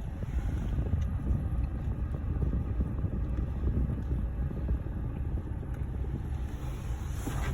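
Steady low rumble and hiss of a small car heard from inside the cabin. A brief metallic rattle starts right at the end.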